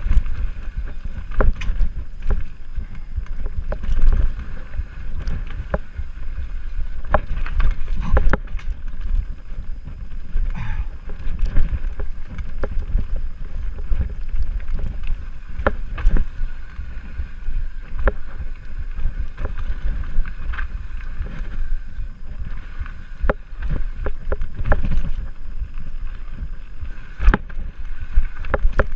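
Mountain bike riding fast down a dirt trail: steady low tyre and wind rumble on the GoPro's microphone, with frequent sharp knocks and rattles from the bike over bumps and roots.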